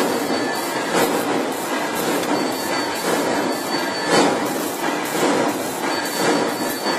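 Steady workshop noise with irregular metallic knocks and clanks, a few each second, one of the strongest about four seconds in.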